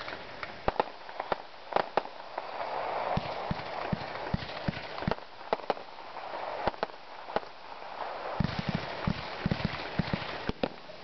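Aerial fireworks going off: a rapid, irregular string of sharp pops and bangs as shells launch and burst, with a cluster of deeper thumps near the end.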